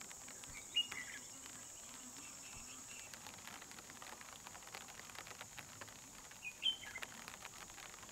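Outdoor ambience in light rain: a steady high-pitched insect drone, two short bird calls about a second in and near the end, and faint scattered ticks of raindrops.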